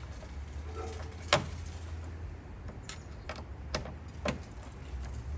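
Scattered clicks and knocks of a plastic frunk bin and a screwdriver being handled while a screw is started through the bin into its bracket, with one sharper knock about a second in.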